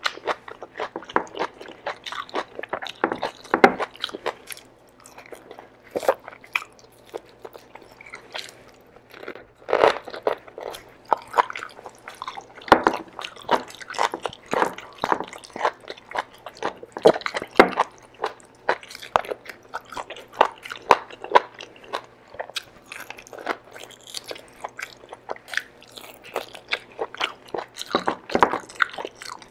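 Close-miked chewing of kare-kare (vegetables and beef in thick peanut sauce) eaten by hand: wet mouth sounds and crunches from the vegetables, in quick, irregular clicks and pops throughout.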